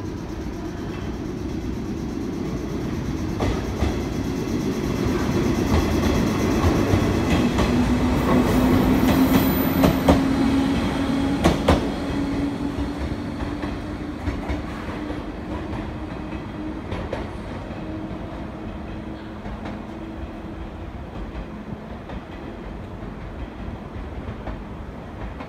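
Two-car 719-series electric train pulling out and accelerating past, with a motor hum rising in pitch and the wheels clicking over rail joints. It is loudest as it passes, about ten seconds in, then fades as it draws away.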